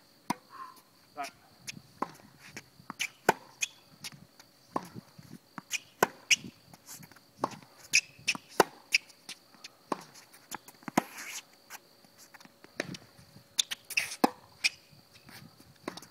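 Tennis ball being bounced and struck on a hard court: sharp knocks of racket hits and ball bounces, irregularly spaced through a rally. A faint steady high tone runs underneath.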